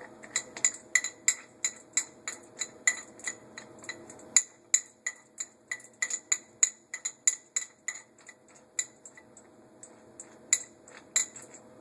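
Small steel parts of a mill-vise dog clamp clicking and clinking as its nut and spherical washer are worked by hand: a quick run of light, ringing metallic ticks, about three to four a second, thinning out near the end, over a faint steady hum.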